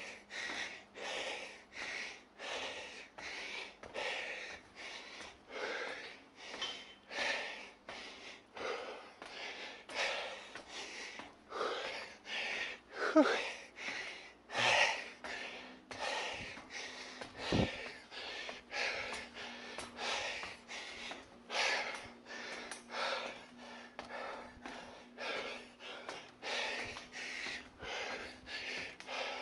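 A person breathing hard and rhythmically, about one and a half breaths a second, from the exertion of climbing a long, steep staircase.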